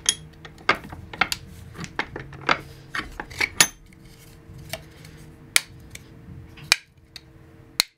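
Sharp clicks and knocks of a hard 3D-printed plastic part being taken out of a steel bench vise and handled, about a dozen irregular taps, over a faint steady hum.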